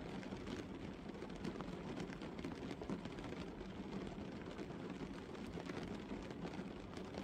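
Gentle rain falling on a car's windscreen and body, heard from inside the car: a steady hiss dotted with many small, quick drop ticks.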